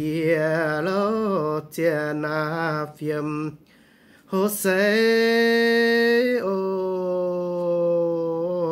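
A single voice singing unaccompanied: a slow melody of long held notes with wavering ornaments and slides, in phrases broken by short pauses, with a longer break about halfway through.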